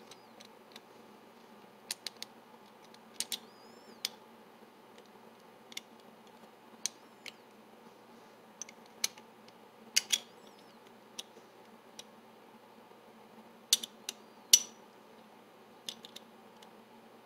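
Small steel parts of a PDQ GP series lever lock chassis clicking and clinking as they are fitted together by hand: irregular sharp clicks, a few with a brief metallic ring.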